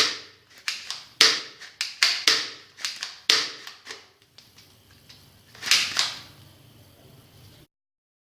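Toy guns firing: a quick irregular run of about nine sharp shots, each with a short ringing tail, then one more shot after a pause.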